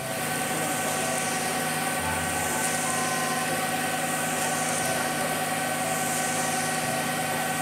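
Concrete mixer truck's diesel engine running steadily while the drum turns to discharge concrete down the chute, with a constant hum of several steady tones.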